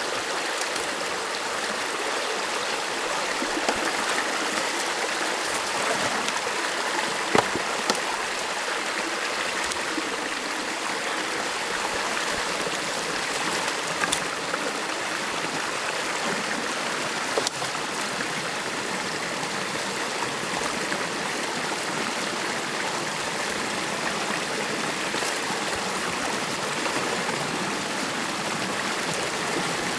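Stream water flowing steadily, with a few sharp knocks now and then.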